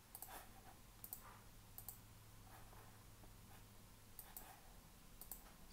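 Near silence: a few faint computer mouse or keyboard clicks spread out over a low, steady hum of room tone.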